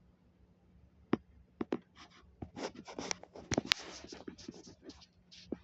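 Handling noise: a few sharp clicks, then a run of scraping and rustling with one loud, sharp click near the middle, as objects are moved about.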